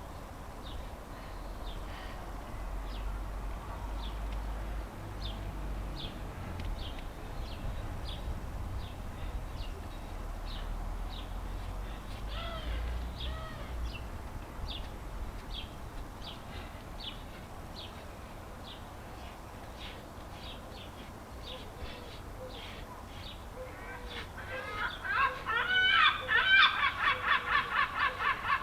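Birds calling: faint short chirps repeat about once or twice a second, and a loud fast run of repeated harsh, pitched calls from a fowl begins near the end.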